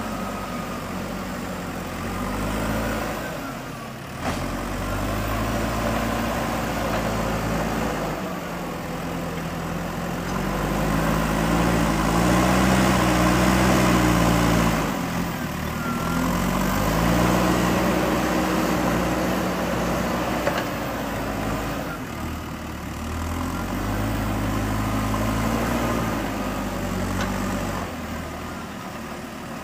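JCB 3DX backhoe loader's diesel engine running under working load, its revs rising and falling again and again as the hydraulics are worked, loudest around the middle.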